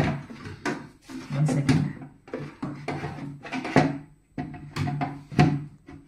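A hard disk being slid and pushed into the drive bay of a sheet-metal PC cabinet, with a string of irregular metallic knocks and scrapes as the case and drive are handled.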